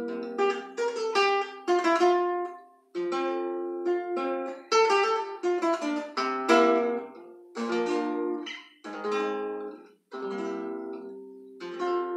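Nylon-string classical guitar, capoed, playing a solo instrumental interlude: picked runs and strummed chords that ring and fade, with two short pauses about three and ten seconds in.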